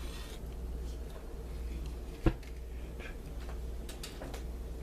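A steady low hum with a few faint ticks and one sharp knock a little over two seconds in.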